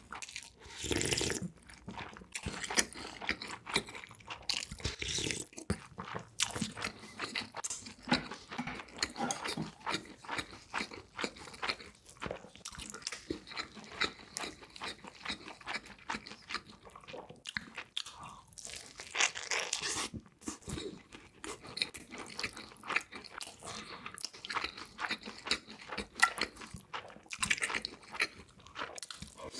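Close-miked eating: a person biting into and chewing crunchy food, with many sharp, irregular crunches throughout.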